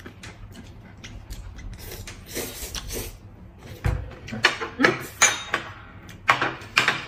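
Close-miked eating sounds: noodles being slurped and chewed, followed from about halfway on by a run of sharp clicks and clatter of chopsticks and a plate against a glass table, with one dull thud just before.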